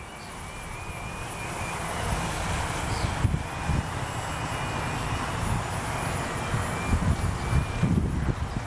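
T380 remote-controlled aircraft's motors and propellers whining, the pitch wavering up and down as it flies, with gusty wind rumbling on the microphone and growing louder.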